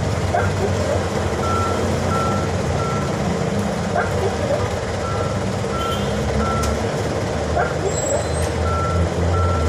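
Vehicle reversing alarm beeping in steady groups of three over a low engine rumble.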